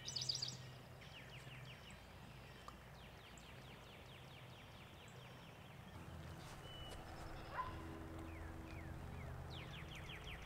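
Birdsong: three rapid trills of quick, descending notes, with a few short chirps between them, over a faint steady low hum.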